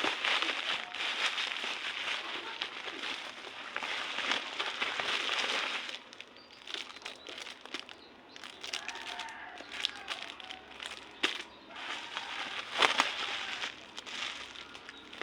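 Packaging crinkling and crackling as it is handled and torn open, dense for about the first six seconds, then in sparser crackles and clicks.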